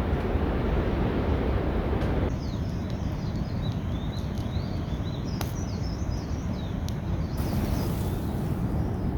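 Wind rumbling on the microphone in the open, with a steady hiss. After about two seconds small birds chirp and twitter quickly for several seconds, with a single sharp click partway through; near the end the hiss grows brighter.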